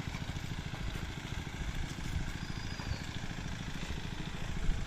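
Small engine of a pond-draining water pump running steadily, with a fast, even beat.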